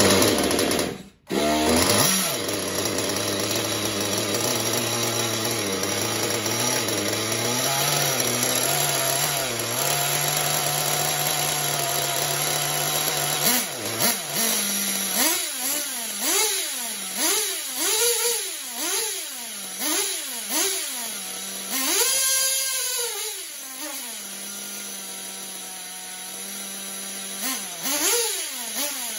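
Novarossi P5 two-stroke glow (nitro) model engine in a 1/8-scale buggy, running at a steady idle after a brief dropout about a second in. Around the middle it is given a run of quick throttle blips, the revs rising and falling about once a second, then one longer rev, before it settles to a slightly higher idle with one more blip near the end.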